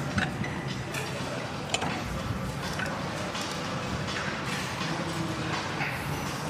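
Gym ambience: a steady background hum broken by a few sharp clicks and clinks, typical of a cable machine's weight stack and fittings in use.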